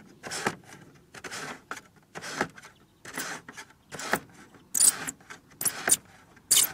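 Plastic roof skylight being worked open by hand: a series of short plastic clicks, creaks and rattles from its hinged lid and opening mechanism, sharper near the end.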